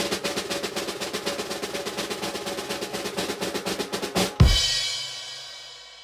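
Drum roll sound effect: a rapid, steady snare drum roll that ends about four seconds in on one loud final crash, which rings out and fades away.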